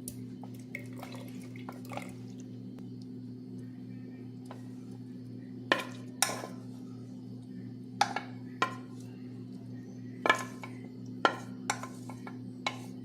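Spoon clinking and knocking against a pot and jar while cooked pineapple syrup is spooned out: a few faint taps, then about a dozen sharp clinks from about six seconds in.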